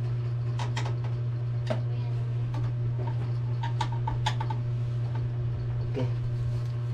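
Scattered light clicks and knocks of parts and cables being handled inside a desktop computer case, over a steady low hum.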